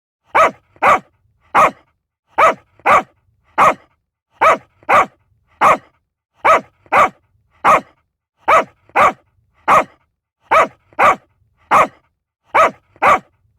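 A dog barking in sets of three sharp barks, the same three-bark pattern repeating about every two seconds.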